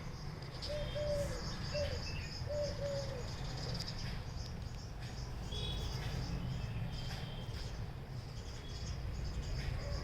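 A dove cooing, a short run of soft coos in the first three seconds, over a steady high-pitched insect trill. A few faint bird chirps come later, and a low rumble runs underneath.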